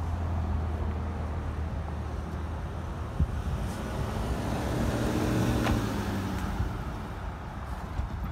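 Road traffic passing over the crossing. One vehicle swells up and passes close about five to six seconds in, then fades.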